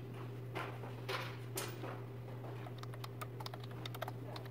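Typing on a smartphone: a run of small, quick taps and clicks, thicker toward the end, over a steady low room hum.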